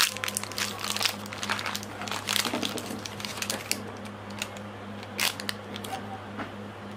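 Plastic snack wrapper crinkling as it is torn open and handled, with the snack pieces tipped out of it; the crinkling is dense for the first few seconds, then thins to occasional rustles. A steady low hum runs underneath.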